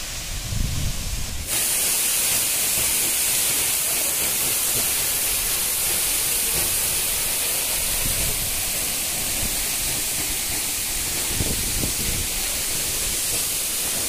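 Waterfall pouring onto rocks close by: a loud, steady rushing hiss that starts abruptly about a second and a half in.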